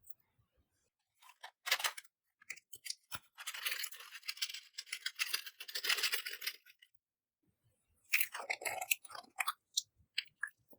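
Crackly scraping and crunching in three bursts, the longest in the middle, as makeup and clear slime are worked together.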